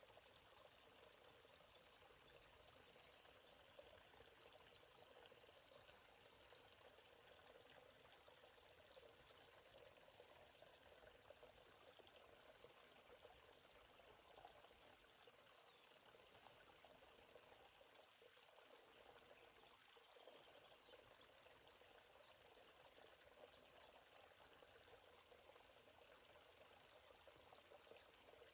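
Quiet forest ambience: a steady, high-pitched drone of insects with the faint rush of a stream beneath.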